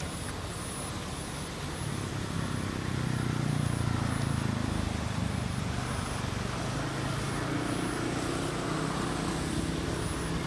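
Low hum of a motor engine running steadily, swelling a few seconds in and easing off again, with a faint high tone pulsing about twice a second behind it.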